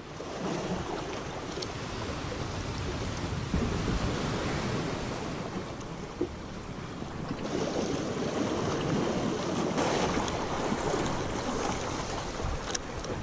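Sea waves washing against breakwater rocks, with wind buffeting the microphone; a steady rushing noise with no clear individual breakers.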